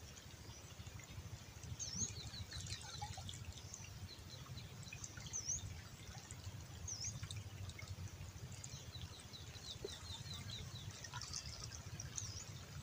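Small birds calling faintly: a few short, sharp chirps and two quick trills of rapid ticking notes, one early and one in the second half, over a low steady rumble.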